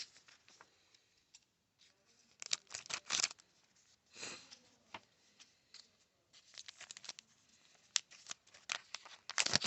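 Foil wrapper of a baseball-card pack crinkling and being torn open. Bursts of rustling and tearing come about two seconds in, once more around four seconds, and in a longer run from about six seconds on.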